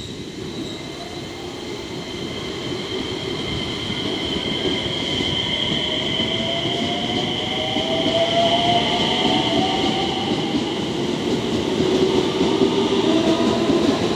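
JR West 227 series electric commuter train pulling out on the adjacent track: its motor whine rises in pitch as it accelerates over rumbling wheel noise that grows louder, with a steady high whine throughout.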